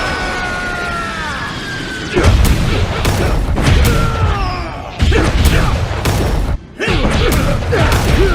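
Edited anime fight sound effects: heavy impacts and booms, with short yells and grunts from the fighters. The first hit comes about two seconds in, with more follow-ups, and there is a brief gap about six and a half seconds in.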